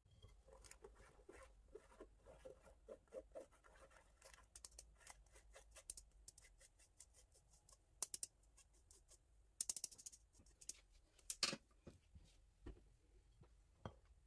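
Faint scraping of a spatula pushing icing sugar through a stainless-steel mesh sieve, in rhythmic strokes about three a second, followed by scattered sharp taps and clicks of the sieve against the ceramic mixing bowl.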